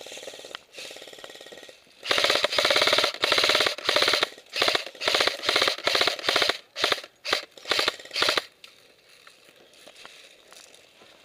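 Airsoft rifle firing on full auto: one long burst, then a string of about ten short bursts in quick succession, each a rapid rattle of shots, stopping about eight seconds in. This is covering fire for a rush.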